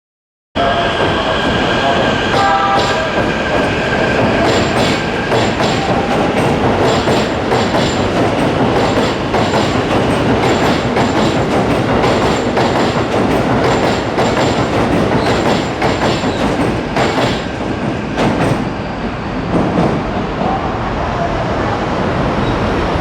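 Keikyu electric train moving along the platform track, its wheels clicking over rail joints in a regular clatter, with a steady electric whine in the first few seconds.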